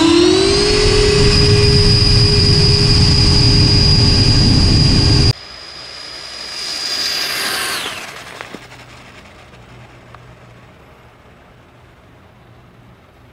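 Model jet turbine on an RC race truck spooling up with a high whine that rises in pitch over the first second, then holds steady and loud. About five seconds in the sound drops to a quieter, more distant whine that swells and then falls in pitch near the end of its run, fading to a faint hiss.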